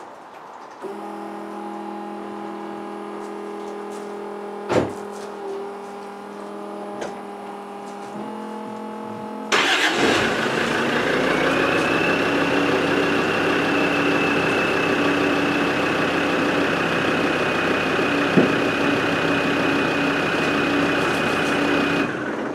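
A steady hum, then about ten seconds in the Land Rover Discovery TD5's five-cylinder turbo-diesel engine starts and runs steadily, with a high steady whine joining it a couple of seconds later; both stop shortly before the end. The engine is run so the air suspension pumps the new rear air bags up to ride height.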